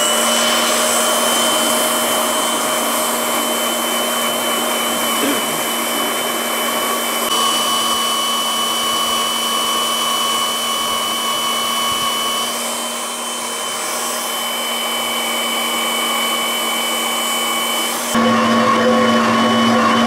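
Magnetic-base drill's electric motor running with a steady whine as a long twist drill bores a stay hole through the steel firebox plate of a traction engine boiler. The sound changes abruptly near the end, getting louder.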